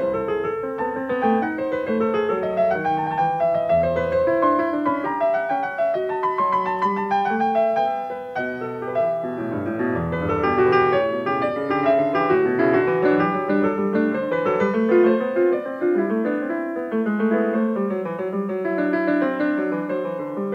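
Solo piano music played at a flowing pace, many notes in quick succession.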